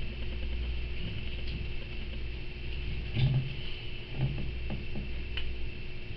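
Quiet room tone: a steady low hum with a faint higher whine, two soft brief low sounds around the middle and a small click near the end.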